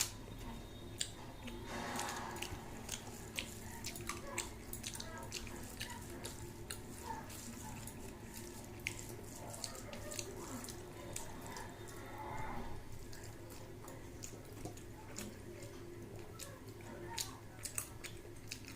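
Close-up eating sounds: wet, irregular clicks and smacks of chewing a mouthful of rice and fish, over a steady low hum.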